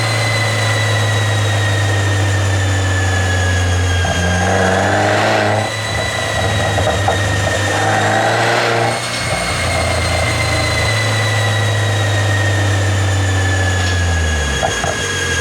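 Mercedes-Benz W213 E350 4Matic engine idling and blipped a few times, the revs rising and falling back, with a few short crackles from the exhaust as the revs drop, from a pop-and-crackle tune.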